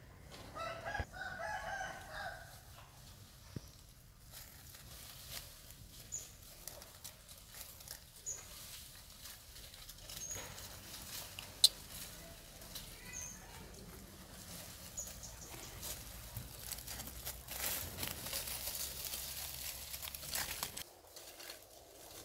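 An animal call lasting about two seconds near the start, then a few short high chirps spaced a couple of seconds apart. A single sharp click about halfway through is the loudest moment, and a few seconds of rustling follow near the end.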